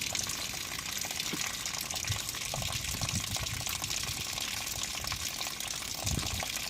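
Water running steadily out of a camper's opened plumbing drain as the water system is emptied for winterizing.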